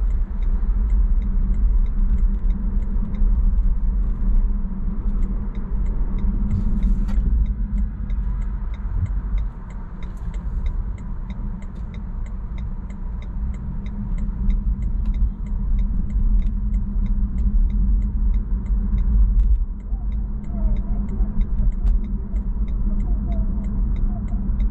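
Steady low rumble of a car's engine and tyre noise heard from inside the cabin while driving in city traffic. It eases for a few seconds in the middle, then builds again.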